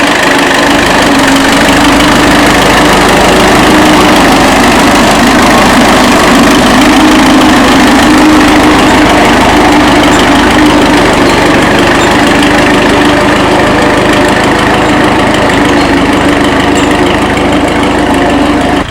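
1935 Fordson tractor's four-cylinder engine running loud and steady.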